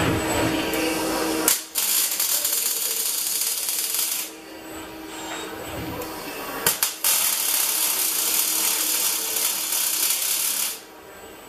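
Robotic arc welding by an ABB IRB 1600 welding robot's torch on a steel square tube: two runs of steady arc crackle and hiss, about three and four seconds long, each starting with a sharp click, with a quieter gap between them.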